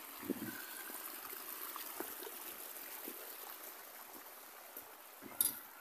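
Muddy rain runoff flowing down an eroded dirt track, a steady hiss of running water. A brief louder noise comes near the end.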